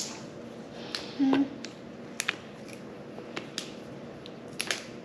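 Fresh rattlesnake green beans being snapped by hand: several sharp, crisp snaps at irregular intervals.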